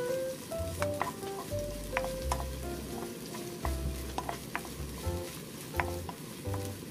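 Finely chopped green onion sizzling in oil in a nonstick wok, stirred with a wooden spoon that knocks and scrapes against the pan now and then. The onion is frying to draw out green-onion oil as the base for fried rice.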